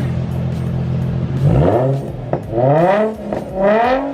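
Nissan NISMO Z car's V6 running through a titanium Tomei dual-exit exhaust: a steady idle, then three quick throttle blips from about a second and a half in, the pitch shooting up and dropping back each time.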